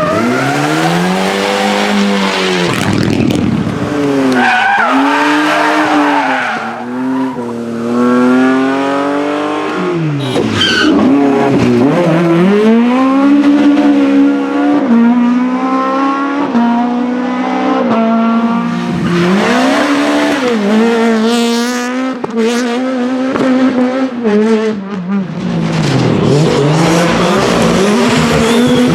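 Rally cars driven flat out past the spot, one after another, engines revving hard: the engine note climbs through each gear and drops sharply at each shift or lift, rising and falling as each car goes by.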